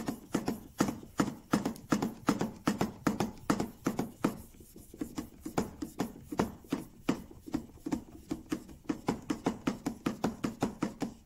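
Steel chisel back rubbed back and forth on a wet waterstone in rapid, even strokes, several a second. These are the light final polishing strokes of flattening the back, with almost no weight on the chisel.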